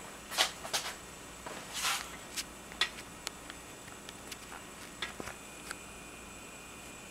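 Scattered crackles and sharp clicks from a homemade soda-can jet engine, thick in the first three seconds and thinning out after. A faint steady high whine comes in about five seconds in.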